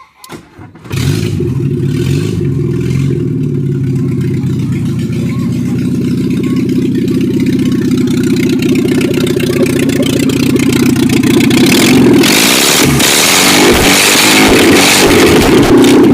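Volkswagen Gol engine running with no exhaust pipe: it starts about a second in and idles steadily, then is revved up and down from about twelve seconds in. Loud throughout.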